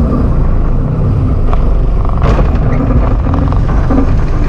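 Off-road 4x4's engine running with a steady low rumble as it crawls along a narrow jungle track. A couple of sharp cracks come about one and a half and two and a quarter seconds in.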